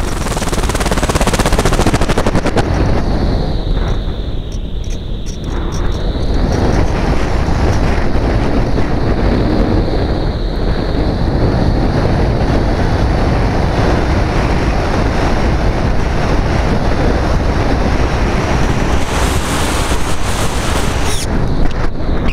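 Rushing wind noise from the airflow over the onboard camera of a Phoenix 2000 RC glider gliding with its motor off. The noise is loud and steady, easing briefly about four to six seconds in.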